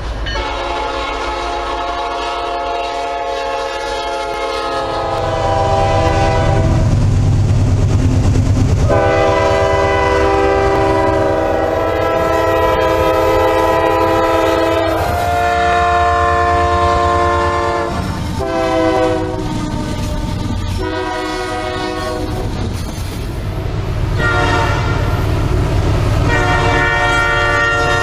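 Diesel freight locomotives' five-chime air horns sounding a string of long blasts one after another, over the low rumble of the locomotives and their freight cars.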